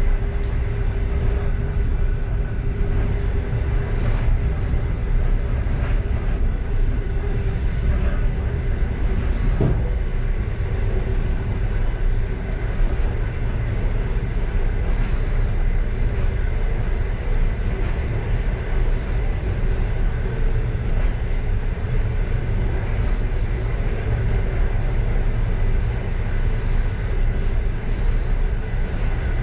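Passenger train running steadily, a continuous low rumble of wheels on rail heard from inside the last car, with a few faint clicks.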